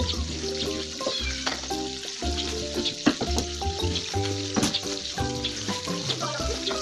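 Food sizzling in a frying pan over a wood fire, with a spatula stirring and a few sharp clicks of the spatula against the pan.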